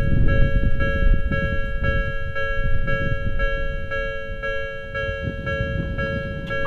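Japanese electronic level-crossing alarm bell ringing, a two-tone chime struck about twice a second, over a steady low rumble.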